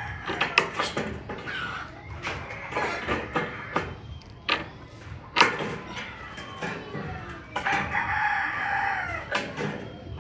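A rooster crows once, a long call starting about seven and a half seconds in and dropping in pitch at the end. Before it come sharp metallic clicks and snips from aviation snips cutting thin painted sheet-steel gutter; the loudest clicks are about half a second in and about five seconds in.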